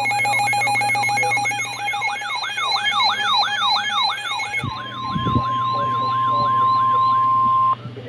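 Two NOAA weather radios, a Midland and a RadioShack, sound their alerts for a severe thunderstorm warning: a rapid repeating rising-falling siren warble over steady high beeps. About two-thirds of the way in, the beeps stop and a single long steady tone sounds with the warble until just before the end. That long tone is the weather radio's warning alarm tone, which signals that a warning is being issued.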